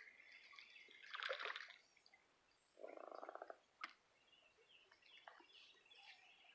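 Near silence by a creek: faint bird chirps, a soft splash-like rustle about a second in, and a short rattling buzz about three seconds in, followed by a single click.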